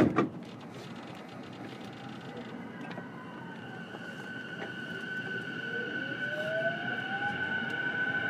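Inside a JR East E233-7000 series electric train's motor car: after a thump at the start, the traction inverter and motors set up a steady high whine, joined about five seconds in by a whine rising steadily in pitch as the train pulls away and accelerates.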